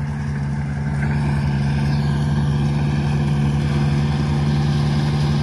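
Kubota DC70 rice combine harvester's diesel engine running steadily under load while it cuts and threshes rice, a little louder after about a second as the machine comes closer.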